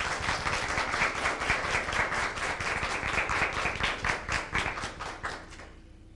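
A small seated audience applauding, a dense run of hand claps that thins out and stops about five and a half seconds in.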